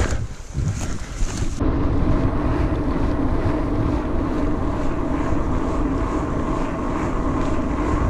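Wind rushing over the camera microphone and the steady drone of knobby mountain-bike tyres rolling fast on a paved path. It cuts in abruptly about a second and a half in, after a quieter stretch on a forest trail.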